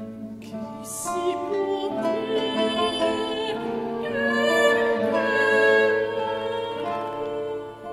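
Soprano singing a sustained, wavering vocal line, accompanied by violin and classical guitar. The voice comes in about a second in and grows loudest in the middle.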